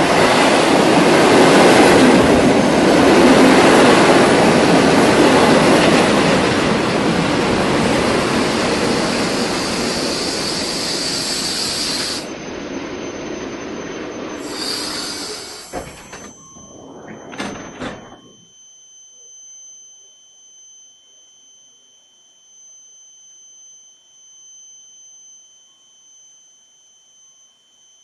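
Koleje Mazowieckie electric multiple unit pulling into a platform: a loud rumble of wheels and running gear that eases as it slows and drops off sharply about twelve seconds in. Brief brake and wheel squeals come as it stops, followed by a steady high-pitched whine from the standing train.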